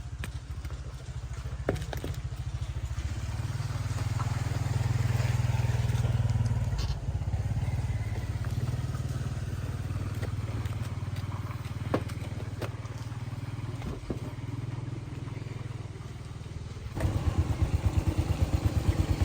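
A small engine, likely a motorcycle, running steadily with an even low pulsing, with a few sharp clicks. It gets suddenly louder with stronger beats near the end.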